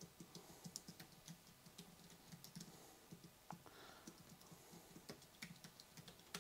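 Faint typing on a computer keyboard: quick, irregular keystrokes with a brief lull a little before the middle.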